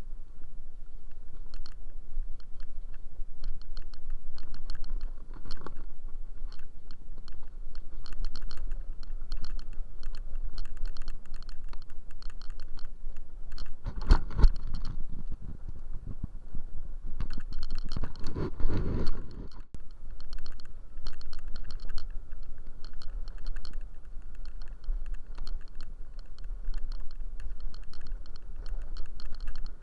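Ride noise from a scooter travelling along a rough concrete lane: a steady low rumble with rapid, irregular clicking and rattling, and two louder rushes of noise, one about halfway through and another a few seconds later.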